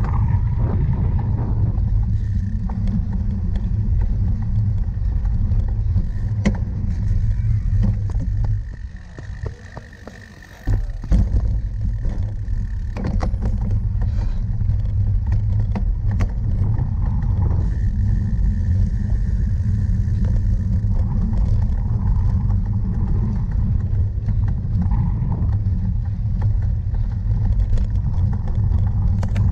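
Wind rumbling on the microphone of a camera carried on a cyclocross bike while riding, with scattered clicks and rattles from the bike over rough ground. The rumble drops away for about two seconds around nine seconds in, then returns.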